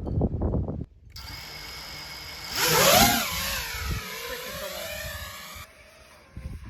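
FPV quadcopter's brushless motors and propellers whining, the pitch rising and falling with the throttle and loudest about two seconds in. The whine starts and cuts off abruptly.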